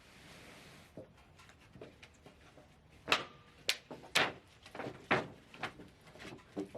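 Scattered sharp clacks and knocks of metal parts being handled on a Wood-Mizer LT35 band sawmill with its engine shut off, as the band blade is being changed; the loudest come between about three and five seconds in.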